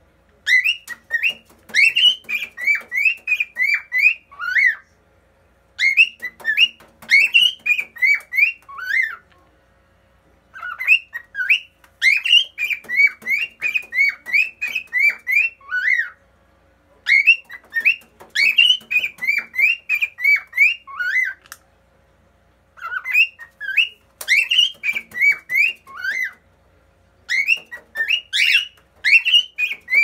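Cockatiel singing: phrases of quick, rising and falling whistled notes, each phrase lasting three to five seconds, repeated six times with pauses of about a second between.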